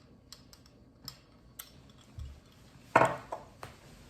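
A drink being taken from a glass, with faint clinks and taps of the glass and tableware. About three seconds in comes one louder knock, followed by two smaller clicks.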